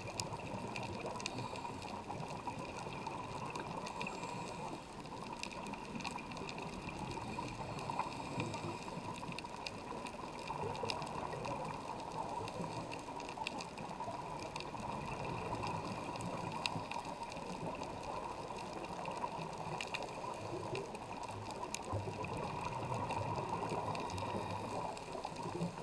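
Underwater reef ambience picked up through a camera's housing: a steady rushing hiss with scattered faint clicks.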